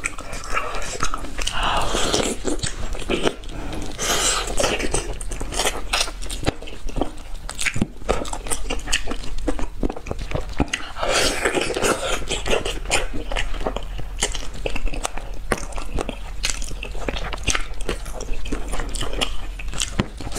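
Close-miked eating of braised turtle: chewing, biting and wet mouth sounds as meat is gnawed off small pieces of bone, with many small sharp clicks and smacks.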